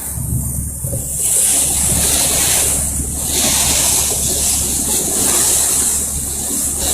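Steady wind rush on the microphone and water noise aboard a moving tour boat, over a low, even engine drone.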